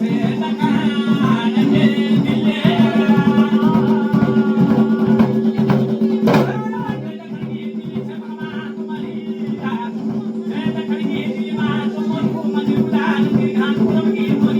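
Music with a singing voice over a steady drone and a quick, even rhythmic beat, with a single sharp knock about six seconds in.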